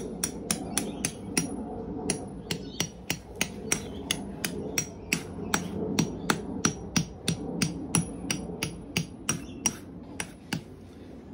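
Hammer with a metal head driving a metal tent peg into grassy soil: steady blows, about three a second, each with a short metallic ring, stopping shortly before the end.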